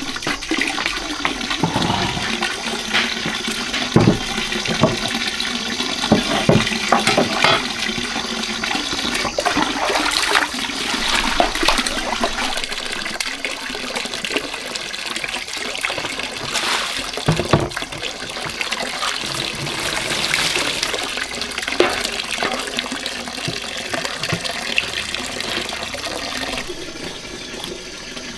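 Water splashing and sloshing in a plastic basin as a large fish is washed by hand, with many short splashes.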